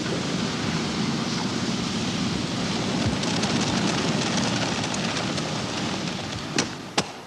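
Steady rushing noise of iron-casting work at a charcoal-fired iron furnace, with two sharp knocks close together near the end.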